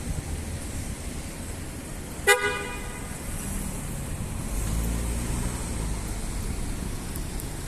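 Low city traffic rumble with one short vehicle horn toot a little over two seconds in, the loudest sound; a vehicle engine passes more loudly around the middle.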